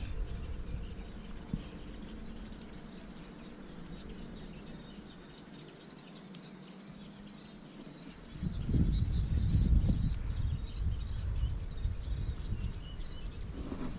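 Small birds chirping in the reedbeds around a marsh channel, short high calls scattered throughout. Under them runs an uneven low rumbling that fades through the middle and then surges much louder about eight seconds in.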